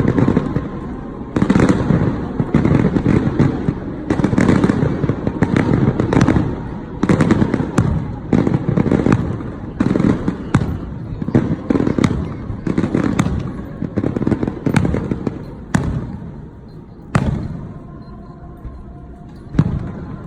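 Aerial fireworks display: shells bursting in quick succession, deep booms about every one to two seconds mixed with sharp crackles. The barrage thins out about three-quarters of the way through, then one more boom comes near the end.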